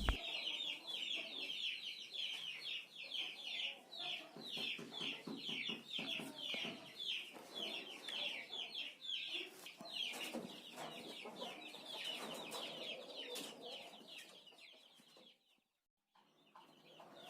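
Chickens clucking and calling, a quick run of short high calls until about fourteen seconds in.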